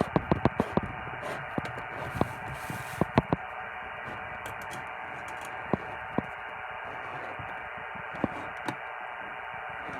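Radio receiver hissing with static, its sound cut off above the voice range, with scattered sharp clicks and crackles that come thickest in the first few seconds and thin out after.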